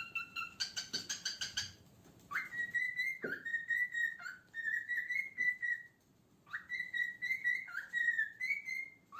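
Cockatiel whistling: a quick run of repeated chirping notes, then whistled phrases that swoop up into held notes, in two bouts with a short break about six seconds in.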